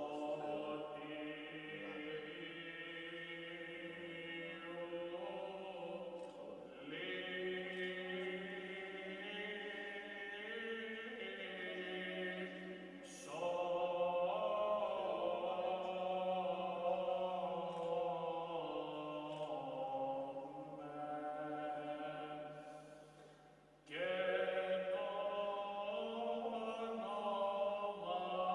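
Orthodox liturgical chant sung in long, held, slowly moving notes. It jumps louder about halfway through, fades away briefly, then comes back abruptly near the end.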